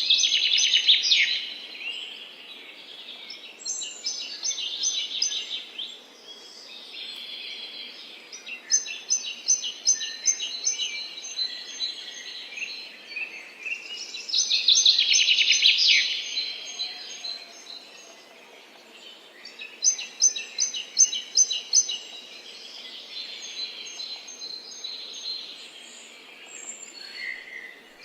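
Songbirds singing and chirping in a forest chorus: loud, dense song phrases about a second in and again around the middle, with rapid runs of repeated high notes between them.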